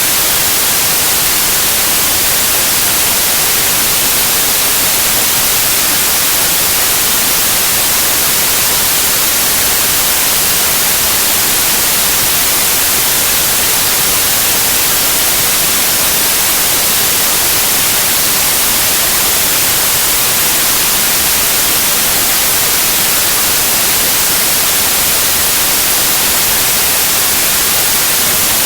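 Steady white noise: an even, unchanging hiss that is brightest in the highest pitches.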